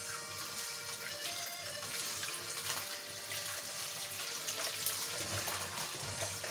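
Kitchen tap running steadily into a sink as diced yam is rinsed.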